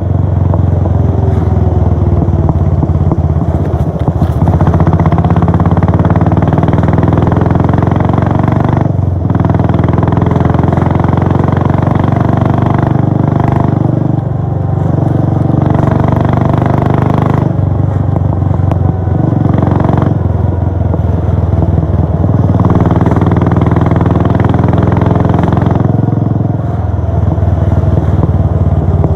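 Royal Enfield Bullet 500's single-cylinder four-stroke exhaust note while riding. The engine pitch rises under throttle and drops off briefly several times as the rider shifts or eases off.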